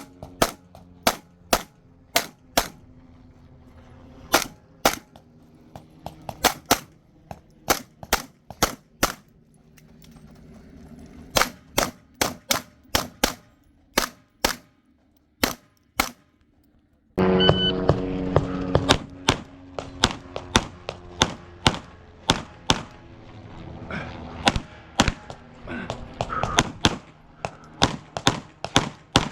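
Rapid 9mm pistol fire from a Glock 45 during a USPSA stage: sharp shots, mostly in quick pairs, with short pauses between strings as the shooter moves between targets. About halfway through, the background changes abruptly while the shooting goes on.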